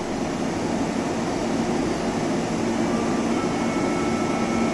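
Tobu 634-type electric train standing at the platform, its onboard equipment and air conditioning running with a steady hum and whir.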